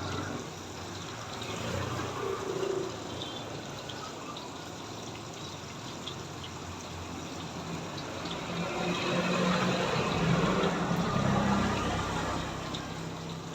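Water running and splashing, getting louder for a few seconds towards the end.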